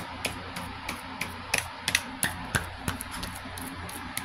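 Light, sharp pats of hands on the face, a few a second and unevenly spaced, over a steady low hum.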